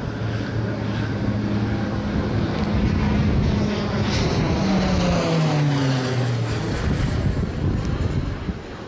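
A KAI KT-1B Woongbi's single turboprop engine and propeller droning overhead. From about four and a half seconds in, its pitch slides steadily downward.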